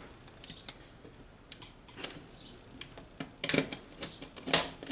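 Scattered small clicks, taps and light scrapes of hands and a tool working on the plastic and metal insides of an opened Dell Inspiron 7520 laptop, with a quick run of clicks about three and a half seconds in and the loudest tap near the end.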